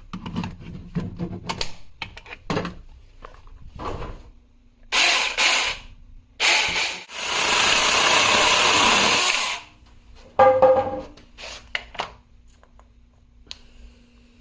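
Mini Saker cordless battery chainsaw's electric motor and chain run in short bursts: two brief ones, then a run of about two seconds at full speed that stops abruptly, then two quick blips. Clicks and knocks of handling come first.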